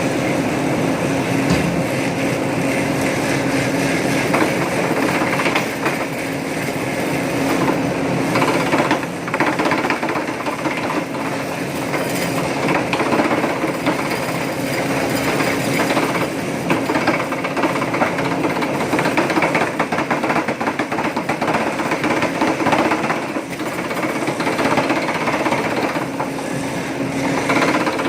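Tyre-cutting machine driven by a 5000-watt electric motor through a WPA 120 worm gearbox, running with a steady hum under continuous rattling and clattering.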